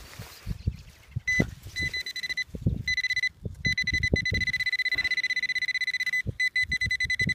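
Handheld metal-detecting pinpointer probing a freshly dug hole, its high-pitched alert tone stuttering on and off from about a second in, then sounding continuously with a rapid pulse from about halfway: it has found a metal target in the soil. Soft knocks and scrapes of the probe and gloved hand in the earth come under it.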